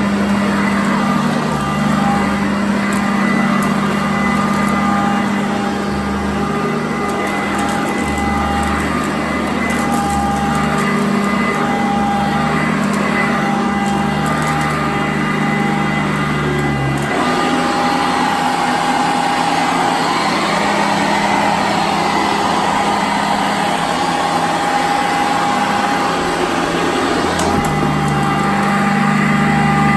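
Sanitaire upright vacuum cleaner running steadily on carpet, a motor hum with a whine above it. About halfway through the low hum changes and it comes back near the end.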